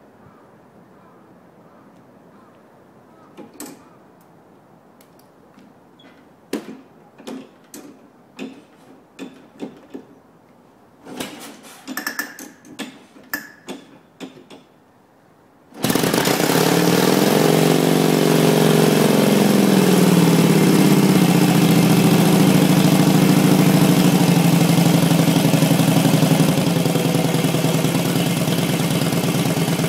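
Indian Chief's 1,200 cc V-twin being kick-started: for about fifteen seconds only a scattering of clicks and knocks as the kick-starter is worked, then the engine catches with a sudden jump in loudness. It runs loudly, its revs swinging up and down at first before settling to a steady idle.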